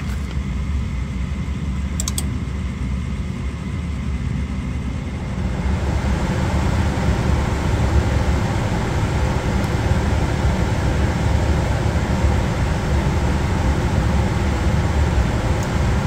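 Gas furnace running with its cabinet door off: a steady low fan-motor hum with a rush of air, growing louder and fuller about five and a half seconds in.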